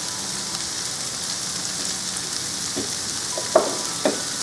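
Diced carrots, celery and leek greens sizzling steadily in oil in a frying pan over high heat. A few sharp knocks of a wooden spatula against the pan come in the last second or so as stirring starts.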